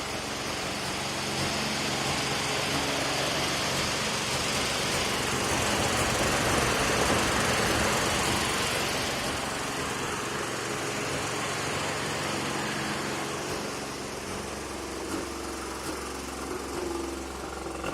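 Naturally aspirated Mazda RX-7 rotary engine idling with an uneven, misfire-like note, caused by a small vacuum leak at the lower intake manifold where the ACV block-off plate is not fully sealed. The sound swells louder for several seconds in the middle, then settles back.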